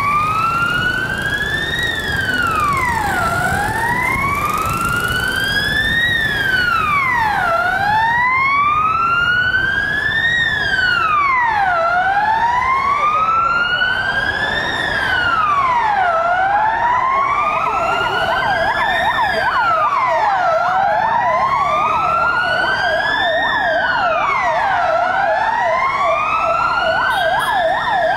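Fire engine siren on a slow wail, each cycle rising for about three seconds then dropping quickly, repeating about every four seconds. About halfway through, a fast warbling siren tone joins in below it, over a low rumble of engines and traffic.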